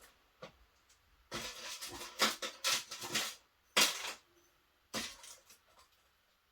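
Small metal keyring parts and tools being handled on a work table: a light click, then about two seconds of rustling and clinking, followed by two short, louder clatters.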